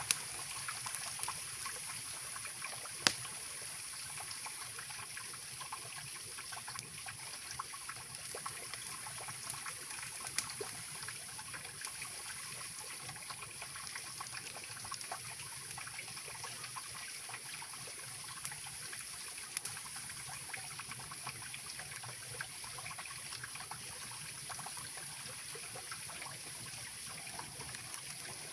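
Mountain river rushing steadily, with a campfire crackling over it and a few sharp pops, the loudest about 3 seconds in.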